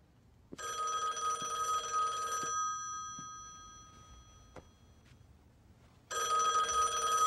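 Desk telephone's bell ringing twice, each ring about two seconds long, with the ringing dying away slowly after each.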